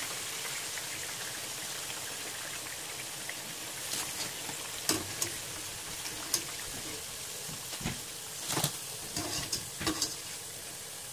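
Battered potato pakoras deep-frying in hot oil in a wok, a steady sizzle, with sharp clinks of the wire skimmer against the pan as the fried pieces are scooped out, mostly in the second half.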